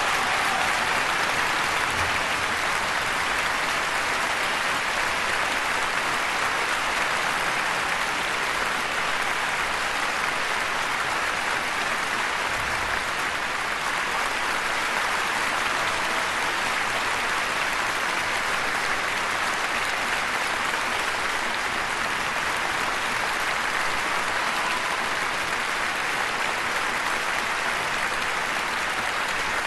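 Concert audience applauding steadily, many hands clapping at once.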